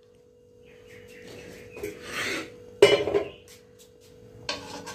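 A metal spoon clinking and scraping against a stainless-steel kadai, with one sharp metal knock about three seconds in. A faint steady hum lies underneath.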